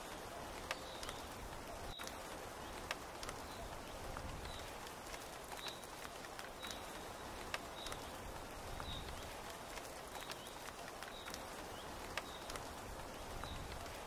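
Steady rain falling, with scattered sharp taps of drops on a tent's canvas. A short, high chirp from a small creature repeats about once a second over the rain.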